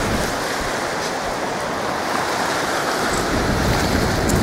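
Ocean surf washing onto a sandy beach, a steady rushing hiss, with wind buffeting the microphone; a low rumble from the wind picks up about three seconds in.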